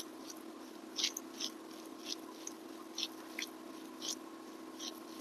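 Eating by hand: short, soft wet clicks and smacks, about two a second at an uneven pace, over a steady low hum.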